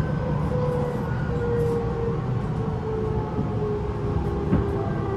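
Tobu 9050 series electric train heard from inside a motor car: the Toyo GTO-VVVF inverter and traction motors whine in tones that slowly fall in pitch. Under them run the steady rumble of the wheels and the air conditioning.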